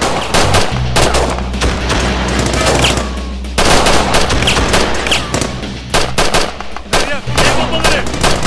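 Gunfire in a firefight: rapid strings of shots from automatic weapons, almost without a break. There is a brief lull about three seconds in, then the shooting picks up again.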